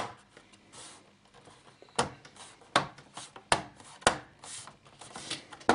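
Plastic bottom cover of an Asus G75V laptop being pressed and snapped back into place: several sharp plastic clicks with rubbing and handling between them.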